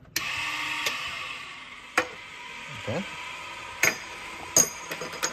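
Burstfire Gen 2 annealing machine running with a steady hum, with a few sharp ringing clinks of 50 BMG brass cases being fed into its wheel, about four of them from two seconds in.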